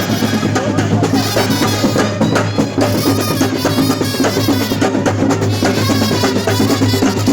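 Festival procession drumming with music: dense, fast percussion over a steady deep bass line, loud throughout.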